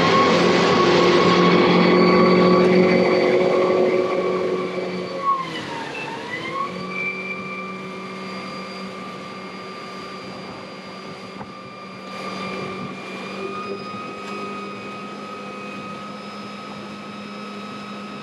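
Vision Marine E-Motion 180E electric outboard running under way: a steady electric whine over the rush of water and wind, with the rush heaviest in the first few seconds. About six seconds in, the whine dips in pitch and climbs back up.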